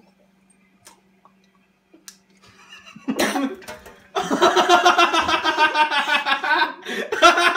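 About three seconds of near silence, then a sudden splutter and a loud, wavering, voiced gargle of water in a man's throat that runs on for a few seconds.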